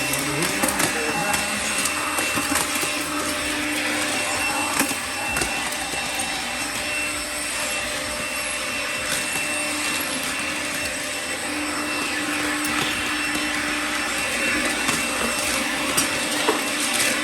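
An electric motor runs steadily for the whole stretch with a loud rushing noise, a faint steady high whine and a few sharp clicks, typical of a power tool or workshop vacuum at work during a lock fitting.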